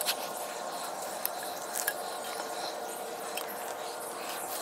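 Saddle-hunting climbing gear handled against a tree trunk: a few sharp clicks of rope and hardware over a steady hiss.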